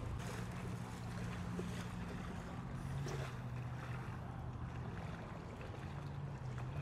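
A motorboat's engine running steadily, a low drone that drops in pitch about two and a half seconds in, over wind and water noise.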